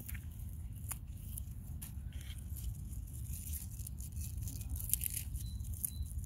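Spinach leaves rustling and stems snapping and tearing as plants are pinched off by hand, with a few sharp snaps about one second in and near five seconds, over a steady low rumble.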